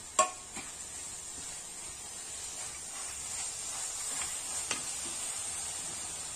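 Wooden spatula stirring thick beetroot halwa and chopped dry fruits in a nonstick pan, over a steady faint hiss. A sharp tap comes just after the start, with a few lighter ticks later.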